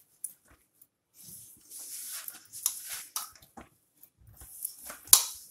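Hands kneading soft gulab jamun mix dough against a steel plate: irregular squishing and pressing sounds, with one sharp knock near the end.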